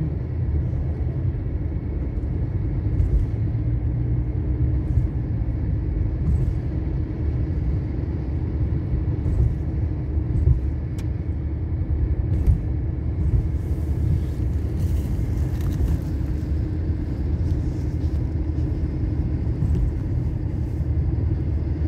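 Car driving, heard from inside the cabin: a steady low rumble of engine and tyres with a constant hum, and a few light ticks.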